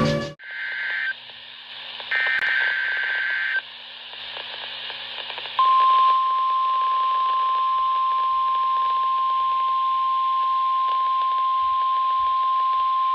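NOAA Weather Radio Emergency Alert System activation over a hissy radio channel: two short bursts of SAME header data tones, then, about five and a half seconds in, the steady single-pitch 1050 Hz warning alarm tone, which carries on to the end.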